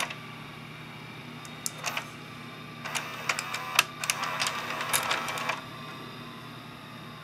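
Sony SLV-595HF VCR's tape mechanism running with a steady motor hum. A few clicks come about two seconds in, then a stretch of rapid mechanical clicking and rattling from about three to five and a half seconds in.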